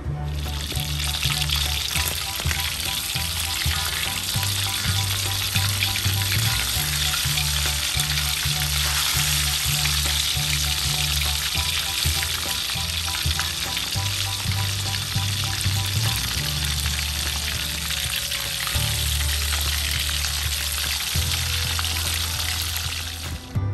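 Chicken pieces frying in hot oil in an aluminium wok, a steady sizzle, while a slotted metal spatula turns them. Background music with a low bass line runs underneath.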